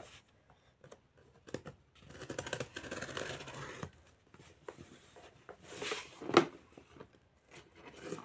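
A cardboard parcel being cut and torn open: rasping stretches of tape and cardboard being cut and ripped, twice, with handling clicks and one sharp knock about six seconds in.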